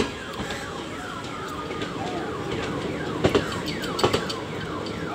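Indian Railways passenger coaches rolling slowly past. The wheels knock over rail joints, the knocks coming in quick pairs about three and four seconds in, and there are many short metallic squeals falling in pitch, one after another.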